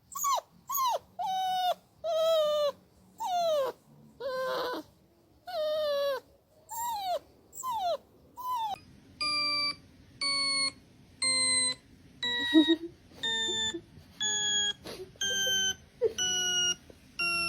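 A dog whining in a run of short, high calls that slide down in pitch, about one a second. Then comes a sequence of steady electronic beeps, about one a second, each a step lower than the last.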